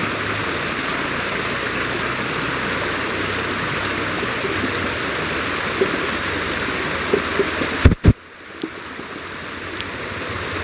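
River water rushing steadily over rocks. About eight seconds in, two sharp knocks sound, then the rushing drops away and gradually builds back.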